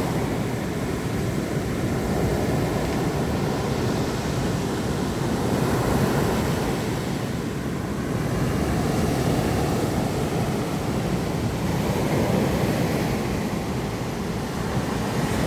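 Sea waves washing onto a pebble beach: a steady surf that swells and eases every six seconds or so.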